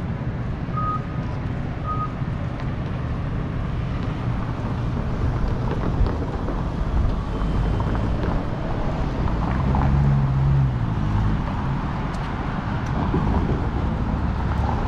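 Downtown street ambience: a steady low rumble of traffic, with a vehicle passing that is loudest about ten seconds in. In the first two seconds there are a couple of short, high electronic beeps.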